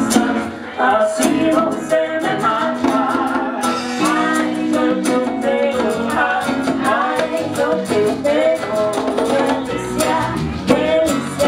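Live band playing with a woman singing lead into a microphone, over guitars and a drum kit.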